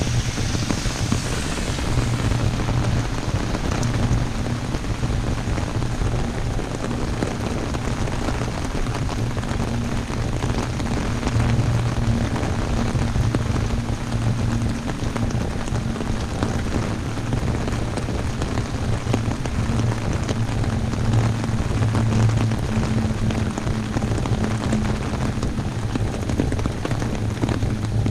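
Heavy rain falling steadily on an umbrella, a dense, even mass of drop impacts. A low steady hum runs underneath.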